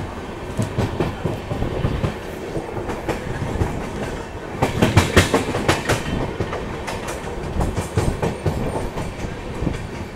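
Passenger train running at speed, heard from inside a sleeper-class coach: steady rumble of the coach with the wheels clacking over rail joints, and a quick, louder run of clacks about five seconds in.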